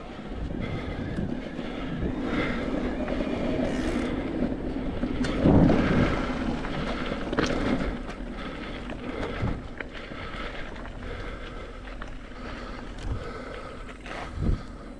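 Mountain bike rolling down a dirt trail: tyres rumbling over the ground and the bike rattling over bumps, with a louder rough stretch about five seconds in.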